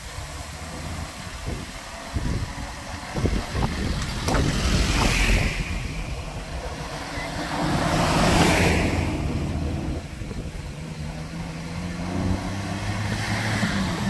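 Old Toyota Land Cruiser jeeps driving past one after another, their engine noise swelling as each goes by, loudest about four and eight seconds in. Wind hisses on the microphone throughout.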